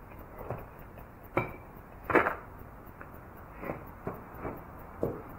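A few scattered knocks and clunks from tools being handled and a person's footsteps, the loudest about two seconds in; the grinder is not running.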